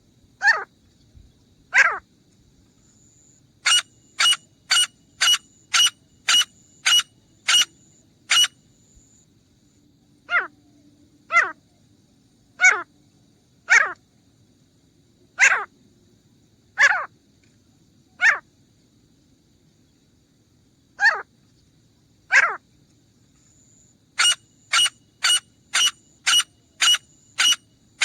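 Grey francolin calling: loud, sharp, repeated notes. A fast run of about two notes a second comes about four seconds in, slower notes spaced a second or more apart follow, and another fast run starts near the end.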